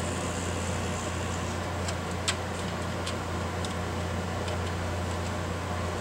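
Model freight train rolling slowly through yard trackwork over a steady low hum, with scattered light clicks of the cars' wheels on the rail, one sharper click about two seconds in.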